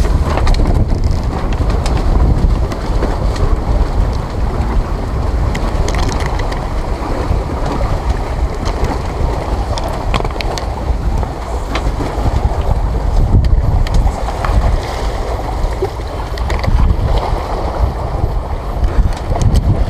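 Wind buffeting the microphone over the wash of sea water, a steady low rumble. Now and then small sharp knocks and rustles break through.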